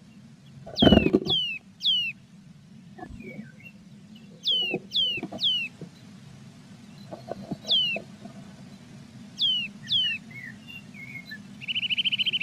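Bird calls: high notes that slide sharply downward, repeated in groups of two or three, then a fast even trill near the end. A loud thump comes about a second in, with a few soft knocks and scratches afterwards. The audio is sped up 1.3 times, which raises the pitch.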